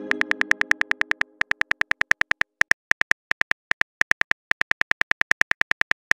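Rapid phone-keyboard typing clicks, about seven a second with short pauses, as a text message is typed out. The tail of a message-received chime dies away in the first second or so.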